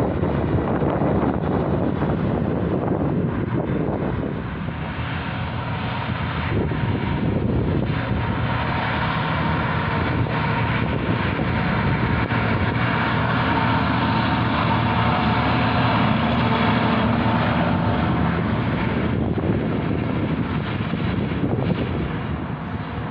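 Passing heavy road traffic: a tanker truck's diesel engine and tyres, then the steady engine note of a large articulated four-wheel-drive farm tractor towing an implement, with wind on the microphone.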